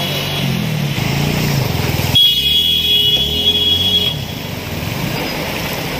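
Car engine running and revving as the car wades through floodwater, with water sloshing around it. About two seconds in, the sound changes abruptly and a steady high-pitched beep sounds for about two seconds over the water noise.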